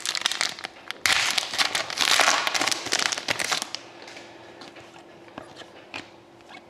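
A shiny foil trading-card pack being torn open and crinkled in the hands: a dense crackling that stops suddenly about three and a half seconds in. After it come a few faint clicks as the cards are handled.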